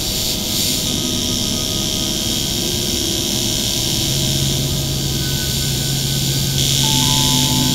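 Sound-designed sci-fi drone: a steady low hum under a rushing hiss, like a jet engine running, with the hiss growing brighter near the end.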